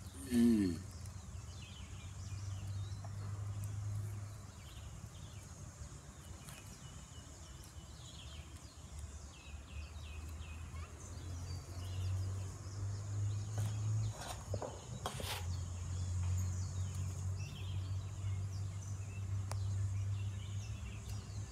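A mating male giant tortoise gives one short groan that falls in pitch, about half a second in. Faint insect and bird chirps and a low hum that swells and fades carry on behind it.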